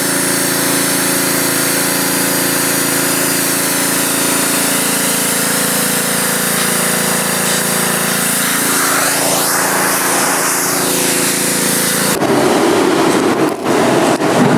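A machine running steadily, its pitch sliding down and back up a little past the middle; about twelve seconds in it gives way abruptly to a rough rushing noise.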